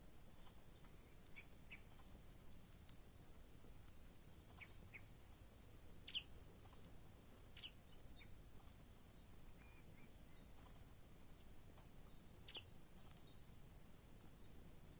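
Faint, scattered short high chirps from a wild ciblek (prinia), the loudest notes about six, seven and a half and twelve and a half seconds in, over a steady high hiss.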